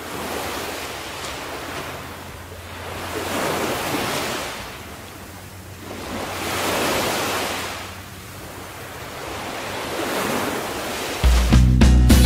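Ocean surf, waves washing in and drawing back in four slow swells about three seconds apart. About eleven seconds in, music starts abruptly and is louder than the surf.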